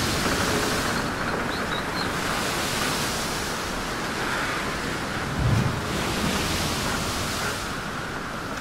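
A steady rushing noise that swells and eases over a few seconds at a time, with a low thud about two-thirds of the way through.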